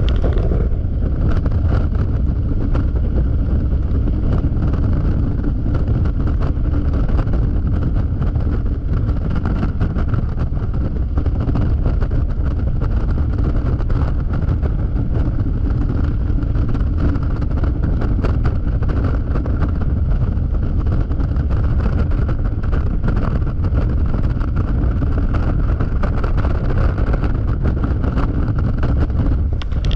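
Yamaha XMAX scooter riding steadily at highway speed: heavy wind rumble on the action camera's microphone over the scooter's steady engine drone.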